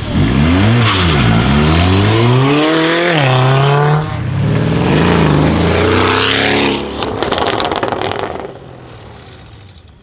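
Mercedes S63 AMG (W221) twin-turbo V8 with a custom exhaust accelerating hard past, its revs climbing, dropping at a gear change, then climbing again. About seven seconds in, on lift-off, a rapid burst of exhaust crackles and pops, then the engine fades as the car pulls away.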